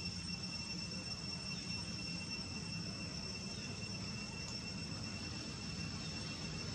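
Insects droning steadily with a constant high-pitched tone, over a low, even background rumble.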